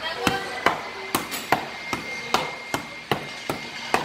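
A series of sharp knocks, about two or three a second, unevenly spaced, over a faint steady high tone.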